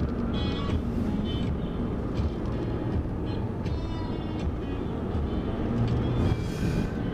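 Steady road noise inside a moving vehicle's cabin: engine and tyres running on a snowy, slushy road. Faint high-pitched tones come and go above it.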